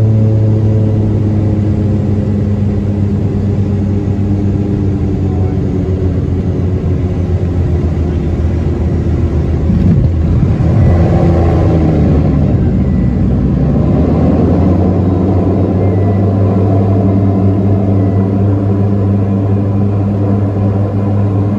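Small commuter plane's engines droning steadily, heard inside the cabin during the final approach, the note easing slightly lower as power comes off. About ten seconds in the wheels touch down with a burst of rumbling, rushing noise, then the engine hum settles again as the plane rolls out on the runway.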